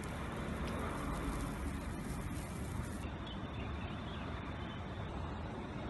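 Steady background noise with a low rumble and no distinct events; the high hiss drops out about three seconds in.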